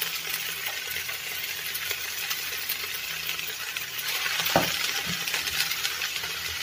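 Hot oil sizzling and crackling in a frying pan as hand-squeezed, salted mustard greens drop in onto frying vegetables. There is a single thump about four and a half seconds in.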